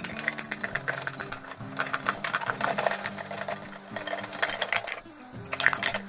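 Can opener of a Victorinox Waiter EcoLine 2.3303 pocket knife cutting around the lid of a steel tin can: fast runs of short metallic clicks as the blade is levered step by step through the lid, pausing briefly a few times.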